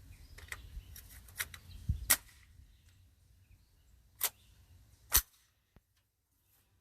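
Semi-automatic Sterling L2A3 9mm carbine firing three single shots, the first about two seconds in, then two more roughly two seconds and one second apart, after a few lighter clicks.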